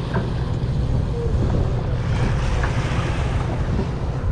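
Party boat's engine rumbling steadily, with wind buffeting the microphone and water washing against the hull; the wash swells a little about halfway through.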